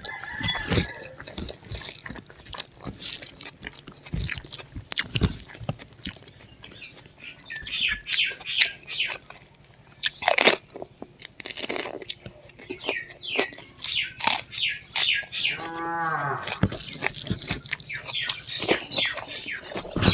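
Close-miked chewing, with wet lip smacks and mouth clicks, as spicy pork and rice are eaten. A short pitched vocal sound about sixteen seconds in.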